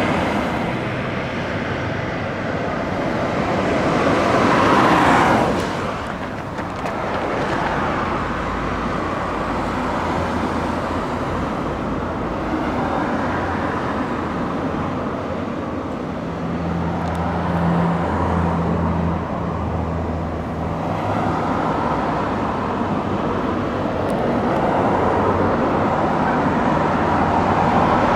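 Road traffic noise: cars running past in a steady wash of tyre and engine sound. One vehicle passes close, swelling up and falling away about five seconds in, and a low engine drone stands out for a few seconds past the middle.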